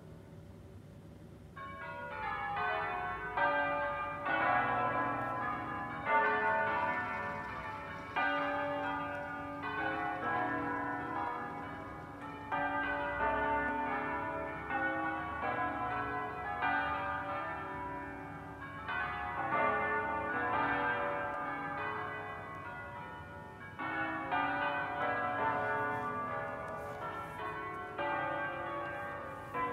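The church bells of the Basilica of Sant'Alessandro in Colonna playing a solemn concerto: many bells struck in quick succession in a melodic pattern that repeats in phrases, each stroke ringing on. They come in about a second and a half in, after a brief lull.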